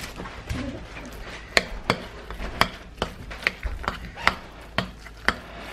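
Metal spoon stirring a thick squash and cauliflower mash in a casserole dish, knocking against the dish in a string of sharp, irregular clicks, about two a second.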